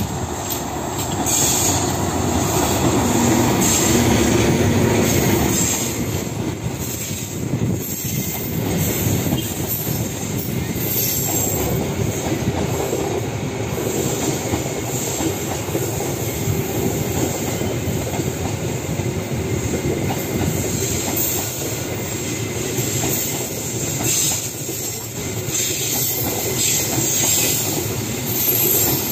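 A diesel-electric locomotive passes close by, loudest in the first few seconds. A long rake of passenger coaches then rolls past with a steady rumble of wheels on rail and repeated clicking over the rail joints.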